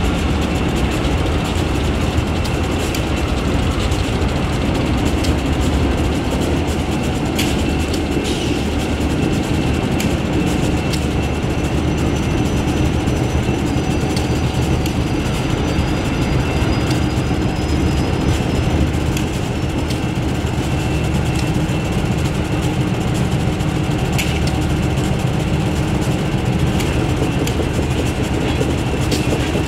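Diesel locomotives, Ohio Central GE B23-7R units, rolling slowly past with a steady low engine rumble and scattered clicks from the wheels.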